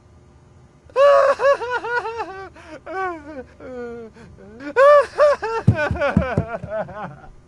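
A cartoon character sobbing and wailing: a quick run of high, rising-and-falling cries that starts about a second in, with the loudest cries around the middle.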